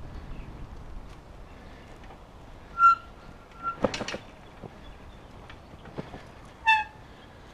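Bicycle ride noise: a steady hiss of wind and tyres. It is broken twice, about three seconds in and near the end, by short, loud high-pitched tones, and a quick cluster of clicks comes in between.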